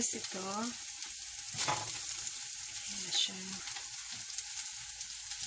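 Pancit canton noodles sizzling steadily in a hot frying pan as rice-stick noodles are piled on top, with a single knock about a second and a half in.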